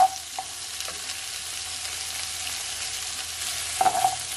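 Sliced bell peppers, carrot and onion sizzling in oil in a nonstick wok while a wooden spoon stirs them, scraping the pan. The spoon knocks sharply against the pan at the start and again near the end.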